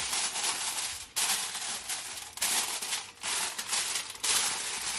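Sheet of aluminium foil crinkling as hands spread and press it down over a baking pan, in a run of rustling bursts broken by brief pauses.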